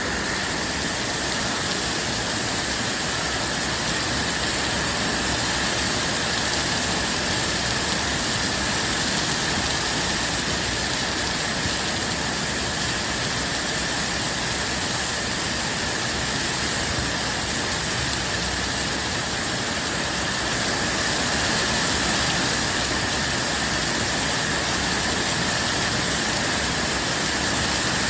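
Steady rain, an even hiss with no breaks or changes.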